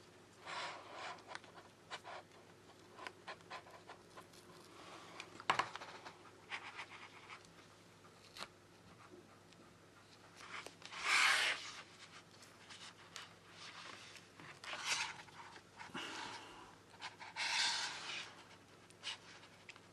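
Plastic opening picks scraping and clicking against the edge of an iPad Pro's glued screen as it is pried up, with a few louder hissy bursts about a second long, the loudest about halfway through.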